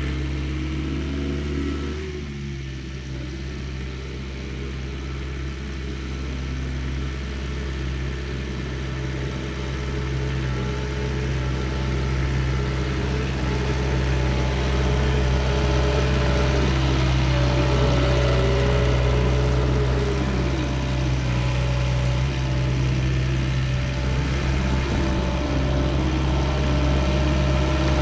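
Diesel engine of a compact earthmoving machine running steadily under work, with a higher whine that rises and falls a few times in the middle and the overall sound growing slowly louder.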